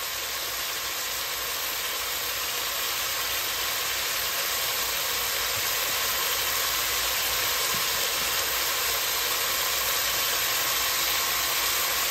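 Ground beef with diced onion and bell pepper sizzling in a hot pot: a steady frying hiss that slowly grows a little louder.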